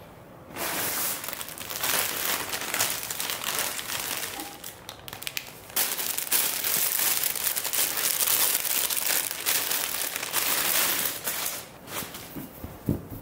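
Clear plastic garment bag crinkling and rustling as a clothing sample is handled and unwrapped from it, with a short lull about five seconds in. It dies down near the end, leaving a few soft knocks.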